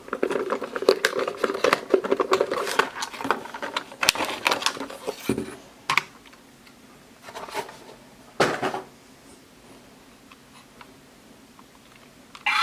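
A plastic toy car clicking and rattling over a steady hum for about five seconds, then a few separate knocks and clatters.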